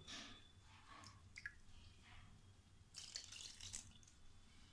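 Water poured faintly from a small steel bowl into a steel mixing bowl of gram flour and curd, with a few small splashes.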